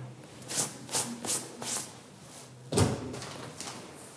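A few light clicks and taps at a flat's front door, then one dull thump nearly three seconds in, as the door and its lock are handled.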